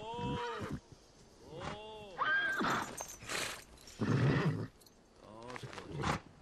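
A horse whinnying several times, each call arching up and down in pitch, with a loud rough burst about four seconds in.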